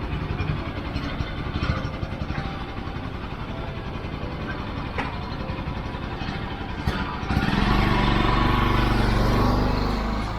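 Motorcycle engine idling with a fast, even pulse, then revved up about seven seconds in and held at a louder, steadier note.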